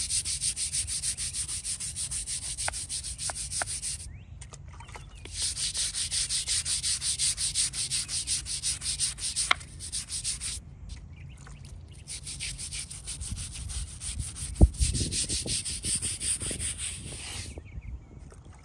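Hand brush scrubbing a stone headstone with rapid back-and-forth strokes, stopping briefly a few times. A single thump sounds about fourteen and a half seconds in.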